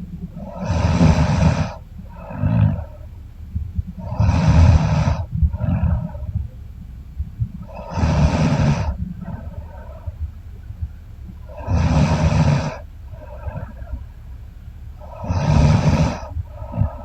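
A woman snoring deeply in a low pitch: five loud, roughly one-second snores about every four seconds, each followed by a shorter, fainter breath sound.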